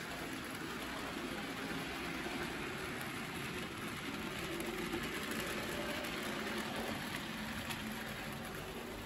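Model trains running on the layout's track: a steady rumble of small locomotive motors and wheels on the rails.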